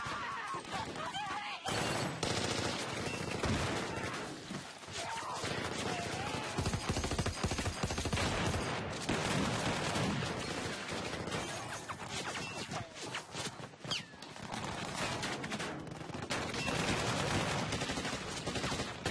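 Heavy automatic gunfire, many shots overlapping in a sustained fusillade, with machine-gun fire among it.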